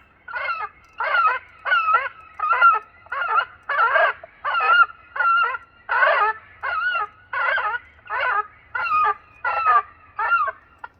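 Electronic audible bird scarer playing recorded gull distress calls through its loudspeaker, to alarm and disperse gulls. It is a rapid, evenly spaced series of short wavering cries, about two a second, that stop just before the end.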